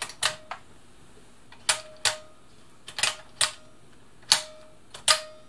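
Buttonhole selector dial of a Bernina 1000 Designer sewing machine being turned by hand, clicking through its positions: sharp clicks, mostly in pairs about every second and a bit, each with a short metallic ring. The dial now turns freely, its linked stitch-width mechanism freed up with penetrating oil after being seized.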